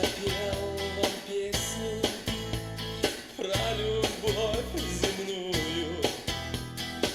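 Music played back through an Akkord 201 stereo amplifier and loudspeakers, picked up by a camera microphone: a guitar-led song with a steady beat and a wavering melody line.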